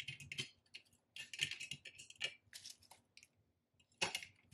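Paper banknotes and a clear plastic binder pocket being handled: a string of short, irregular crisp rustles and crinkles, with a brief cluster near the end.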